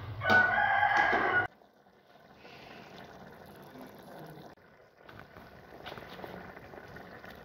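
A metal ladle scraping and stirring in a large aluminium cooking pot of rice, with a few ringing high tones over a low hum, stopping abruptly about a second and a half in; after that only a faint hiss.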